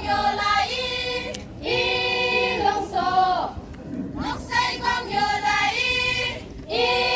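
A group of voices singing together in unison, a song of welcome and honour sung in long held phrases with short breaks between them.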